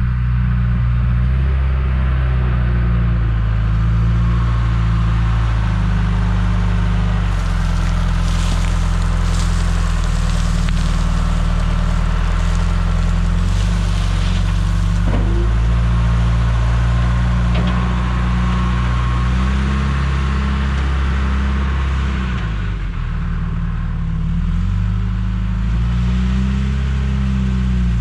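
John Deere 310G backhoe's diesel engine running under working load, its note rising and falling as it works. A stretch of higher, gritty noise sits over the engine from about a quarter to halfway through.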